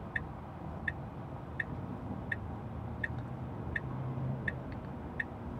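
Tesla Model 3 turn-signal indicator ticking in the cabin, about three ticks every two seconds, with the left signal on while the car waits in the turn lane. A low steady cabin hum lies under it.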